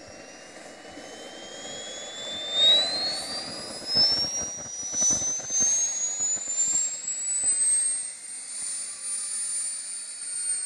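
Small gas turbine engine of a model helicopter spooling up: a high whine rising steadily in pitch and levelling off near the end, growing louder as the main rotor speeds up.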